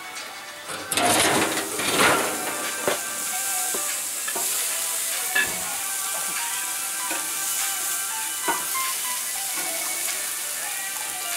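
Burgers and a steak sizzling on a grill grate, loudest about a second in as the lid is lifted, then a steady sizzle. A few short clicks and scrapes come from the spatula on the grate.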